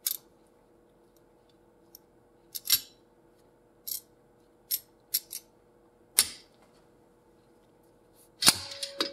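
Scattered light metal clicks and clinks from a slide hammer puller and locking pliers being fitted to two screws driven into a crankshaft oil seal. Near the end come louder metallic knocks with a short ringing tone as the slide hammer is worked to draw the seal out.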